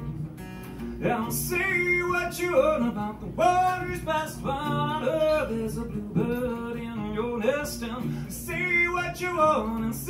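Man singing while accompanying himself on acoustic guitar; the guitar plays alone for about the first second before the voice comes in.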